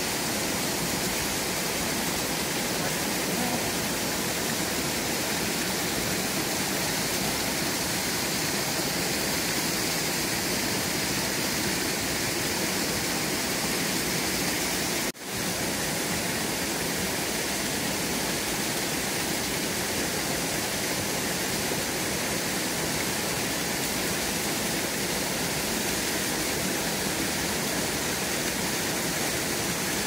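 Steady rush of water falling down Chōji Falls, a partly frozen waterfall, as an even hiss; it drops out for an instant about halfway through.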